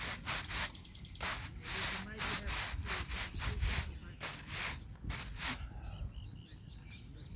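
Broom sweeping loose clay and grass off a cricket pitch's bowling ends, in quick scratchy strokes about two or three a second that stop a little over five seconds in.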